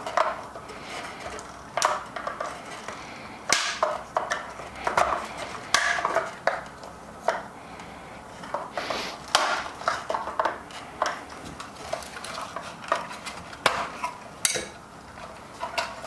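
Flathead screwdriver prying a coffee grinder's timer switch out of its chassis: irregular sharp clicks, taps and short scrapes of metal on the switch body and housing.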